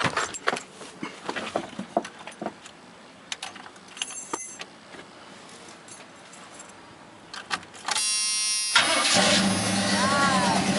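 A few clicks and key rattles, then the starter of a 1986 Chevy C10's 350 crate V8 whirs for under a second. The engine catches just before the 9-second mark and runs at a steady idle through dual Flowmaster exhausts.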